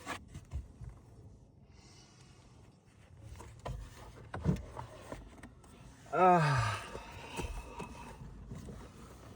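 Plastic clicks and knocks as a car's glove box is unclipped and lowered from the dashboard, with a short loud sound falling in pitch about six seconds in.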